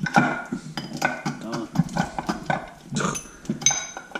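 Metal hand tools clinking and clattering as they are handled on a workbench, with a few ringing metallic clinks about three seconds in, and low voice-like sounds underneath.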